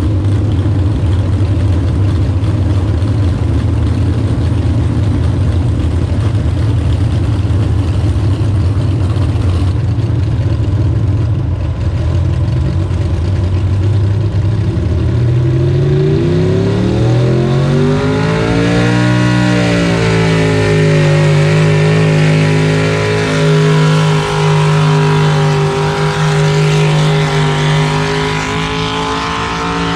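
Pulling vehicle's engine running steadily, then revving up about halfway through and holding a higher, steady pitch under load as it drags the weight-transfer sled down the pulling track.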